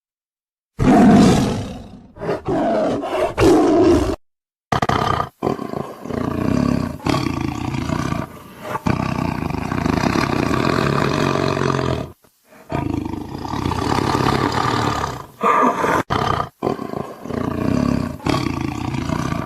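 Tigers roaring and growling in a string of separate calls, the loudest about a second in and again near four seconds. Short cuts to dead silence fall between some of the calls.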